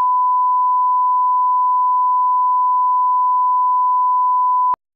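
Steady 1 kHz line-up reference tone, a single unchanging pitch, the calibration signal that runs with colour bars at the head of a video tape. It cuts off abruptly near the end.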